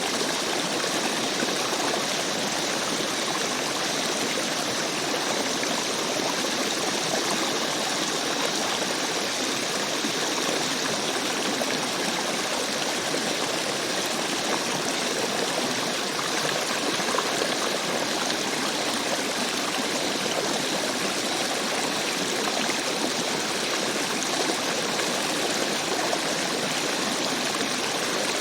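Rainforest stream water flowing steadily, an even rushing and trickling with no breaks.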